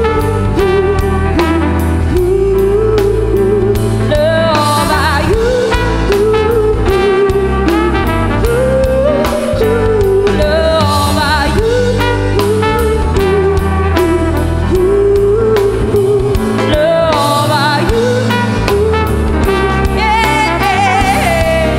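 A woman singing with a live band, her voice wavering in long held notes over drums with cymbals, keyboard and guitar.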